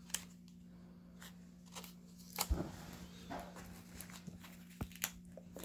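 Trading cards and binder pages being handled: scattered faint clicks and rustles, about half a dozen, over a steady low hum.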